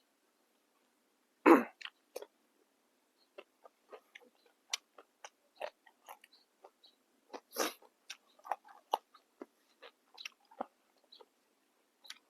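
A person chewing and crunching crisp fresh vegetables close to the microphone: irregular crunches, the loudest a bite about a second and a half in.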